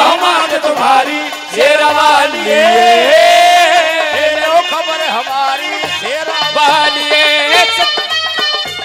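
A woman singing a Haryanvi devotional folk song live into a microphone, holding long, ornamented notes over folk instrumental accompaniment with a drum beat. The voice stops near the end, leaving the instruments and drum playing on.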